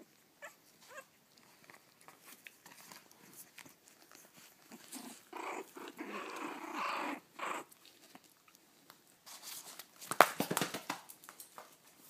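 Young puppies making small whimpers and grunts as they squirm together, busiest in the middle. A cluster of sharp bumps and clicks comes about ten seconds in.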